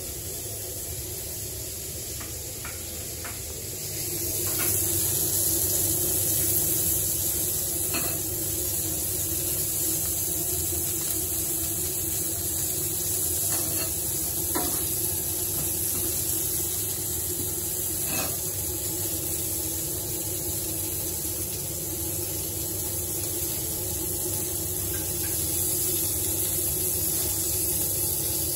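Köfte meatballs sizzling on a charcoal grill, a steady hiss that grows louder about four seconds in, with a few light clicks of metal tongs against the grill and plates.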